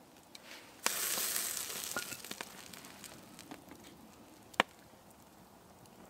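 A sudden burst of sizzling hiss about a second in, dying away over a couple of seconds with crackles: hot bacon fat sizzling. A single sharp snap follows a little later.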